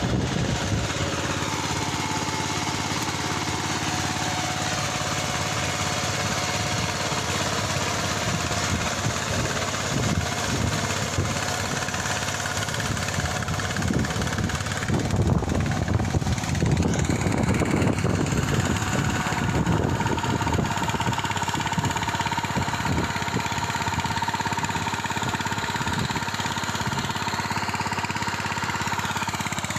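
Engine of a ploughing machine running steadily in the field. It grows louder and rougher for a few seconds around the middle, then settles back.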